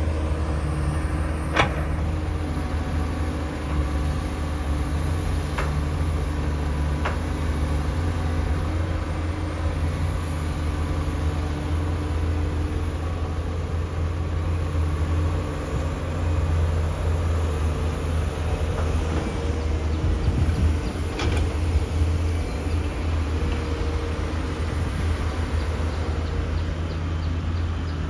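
Komatsu PC450-8 hydraulic excavator's diesel engine running steadily with a deep hum, broken by a few short sharp knocks.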